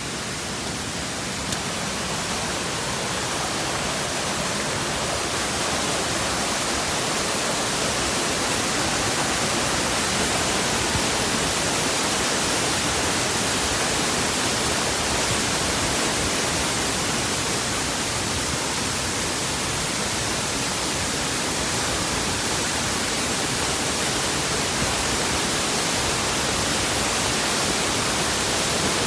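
Waterfall rushing: a steady, unbroken roar of falling water spread evenly from deep to high pitches, with no changes or distinct events.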